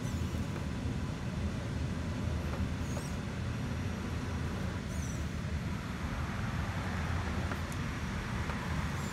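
A steady low rumble, with a few faint short high chirps.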